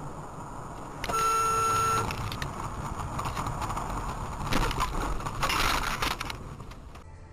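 A car's dashcam audio as it loses control on a snowy road: a steady beep lasting about a second, then rough rushing and scraping noise with two louder bursts about four and a half and five and a half seconds in as the car slides off into the snow.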